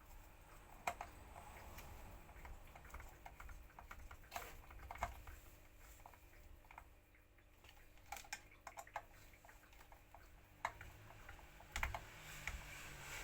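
Scattered light clicks and taps at an irregular pace, with a cluster of sharper knocks near the end: small parts and tools being handled during hand work on the vacuum cleaner.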